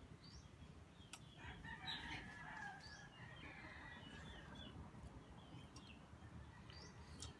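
Faint rooster crowing once, lasting about a second and a half, starting a little over a second in, with a few light clicks.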